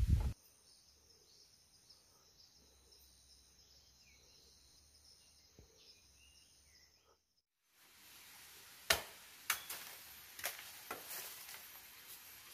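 Quiet forest ambience: a steady high insect buzz with a few short bird chirps. Then come several sharp knocks and cracks from bamboo stalks being worked in a bamboo clump.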